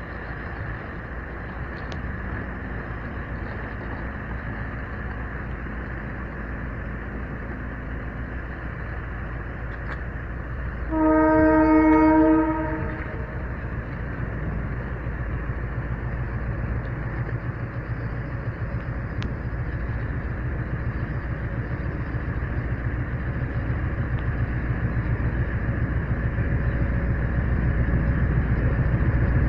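Diesel freight locomotive approaching a level crossing: one blast of its multi-tone horn lasting under two seconds about eleven seconds in, then its low engine rumble growing steadily louder toward the end.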